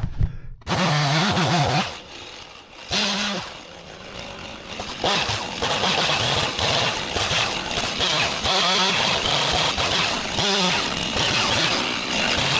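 Two-stroke chainsaw running and revving loudly. It dips for a few seconds, then runs steadily at high revs, as when bucking up a felled treetop.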